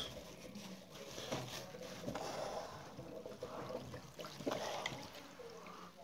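Water trickling out of a Bosch front-load washer's drain pump filter housing into a plastic bag as the filter cap is unscrewed and pulled out, with soft plastic rustles and a few small knocks.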